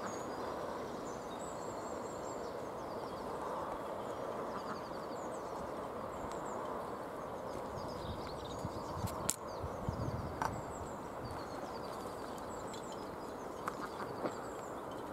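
Outdoor ambience of steady wind rushing, with small birds chirping and twittering high above it throughout. There is one sharp click about nine seconds in.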